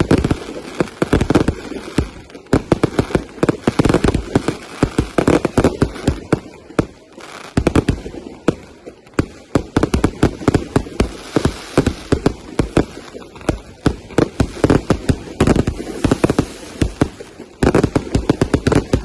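Fireworks going off: a dense, rapid run of bangs and crackles, many per second without a break.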